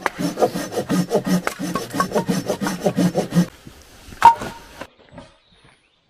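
Hand saw cutting through wood in quick back-and-forth strokes, about four a second, stopping about three and a half seconds in. A single sharp knock with a short ring follows a little later.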